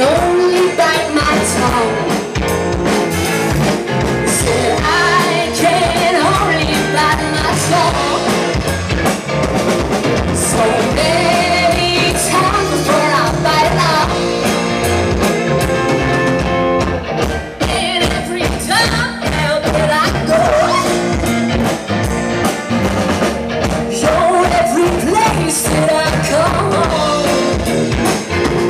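Alternative rock band playing live: singing over electric guitar, bass guitar and drum kit.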